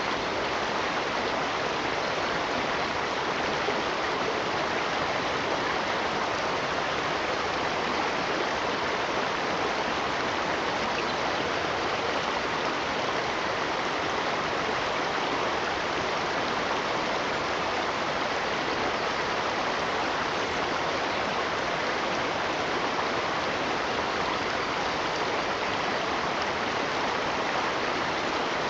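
Running water, a steady, even rush with no breaks or separate splashes.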